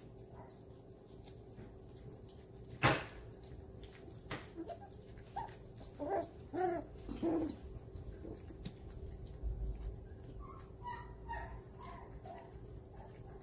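Four-week-old golden retriever puppies whimpering and yipping in a few short pitched calls about six to seven seconds in, with softer squeaks later. A single sharp knock about three seconds in is the loudest sound, over a faint steady hum.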